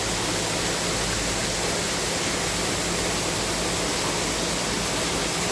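Artificial waterfall on a mini golf course, water rushing in an even, unbroken hiss.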